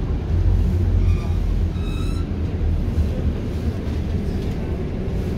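Interior of a Scania articulated city bus driving slowly: a steady low engine and road rumble, with a brief high-pitched tone about a second or two in.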